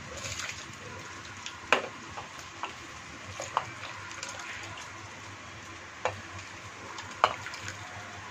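Soaked rice tipped from a steel bowl into a pot of boiling water, over a steady bubbling hiss. About five sharp metal clinks, one each time the spoon or bowl knocks against the pot, the first of them the loudest.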